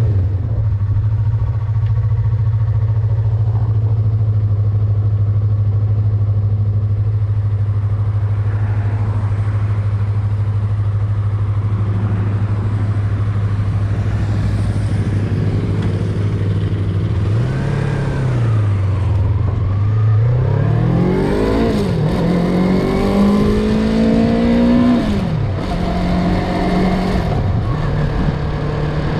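Motorcycle engine running at a steady note for over half the clip, then revving, its pitch rising and falling several times, before settling on a higher steady note near the end.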